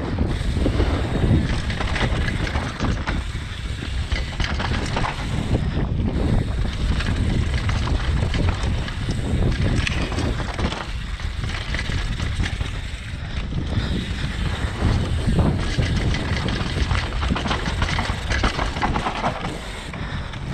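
Downhill mountain bike descending a dry dirt forest trail at speed: wind buffeting the helmet or chest camera's microphone, tyres rolling over dirt and roots, and a constant rattle and knock of the bike over the bumps.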